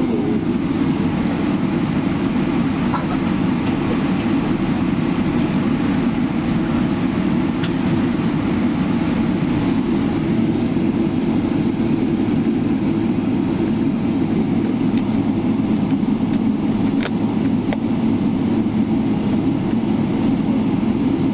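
Steady cabin noise inside a Boeing 777-300ER taxiing after landing: a low, even drone from the idling engines and air system, with a couple of faint ticks.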